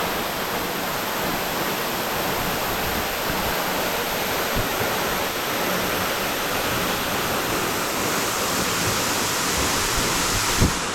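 Waterfall pouring into a pool: a steady, unbroken rush of falling water, with one short thump near the end.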